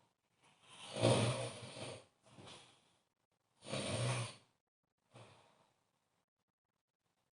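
A sleeping person snoring: two snores about three seconds apart, each with a low buzz, the first the longer, each trailed by a softer breath.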